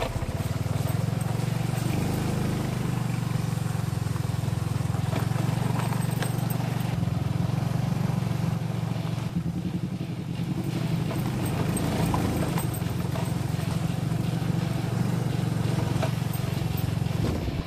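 Motorcycle engine running at a steady low speed, a continuous low drone, heard from the rider's seat while riding a rough dirt road.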